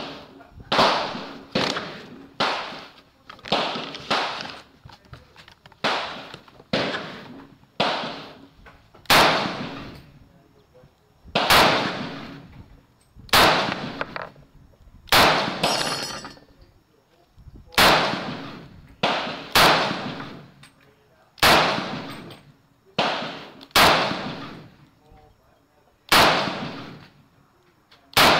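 Sig 556R rifle in 7.62x39 firing a steady string of single semi-automatic shots, roughly one to two seconds apart, about twenty in all. Each loud crack rings out briefly under the covered range roof.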